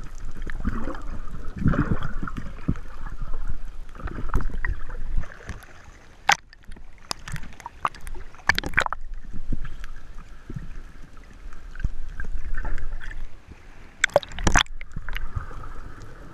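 Water sloshing and gurgling close to the microphone while swimming or snorkelling at the surface. Sharp splashes or knocks come about six seconds in, several more around eight seconds, and two near the end.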